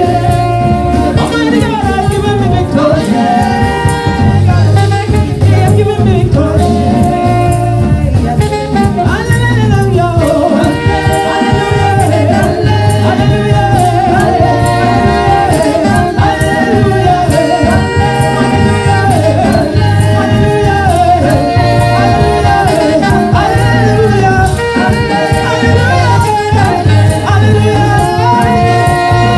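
Live gospel praise-and-worship music: a woman lead singer and a choir of women singing over instrumental backing with a steady bass beat.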